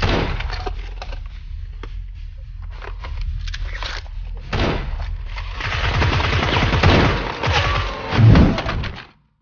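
Rapid gunshot-like shots and thumps of a Nerf gunfight, many sharp cracks over a busy noisy background, cutting off abruptly near the end.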